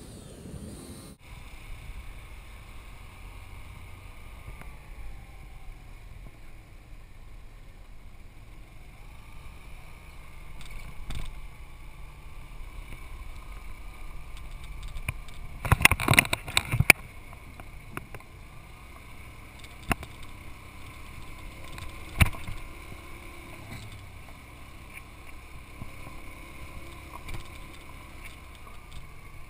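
Yamaha Vino 125 scooter engine running steadily while riding over a rocky dirt road. About halfway through comes a burst of loud clattering knocks, with two more sharp knocks a few seconds later.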